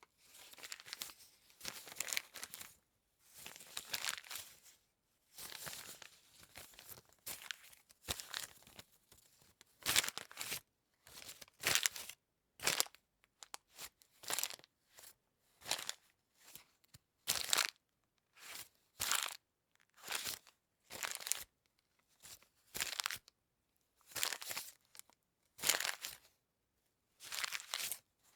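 Paper being crunched and crumpled in a long run of short crackling bursts, roughly one a second, with brief gaps between them.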